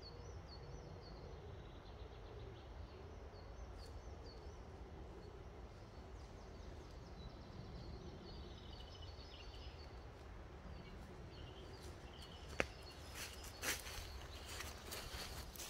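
Faint woodland ambience: small birds chirping over a low steady rumble. A single sharp snap comes near the end, then footsteps crunch through dry leaf litter and bracken as a walker comes close.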